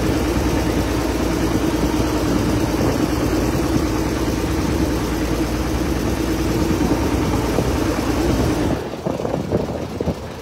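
A boat's engine running steadily, heard from the covered passenger deck, with a constant drone; it falls away about nine seconds in.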